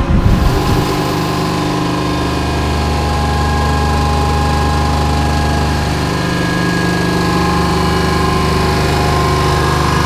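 HUSS Enterprise ride's wheel drive running as the wheel turns: a steady mechanical hum, heard from inside a gondola.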